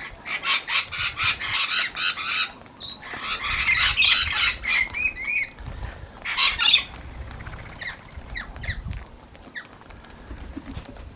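Gang-gang cockatoos giving harsh, creaky squawks in several loud bursts through the first seven seconds or so, then fainter scattered calls.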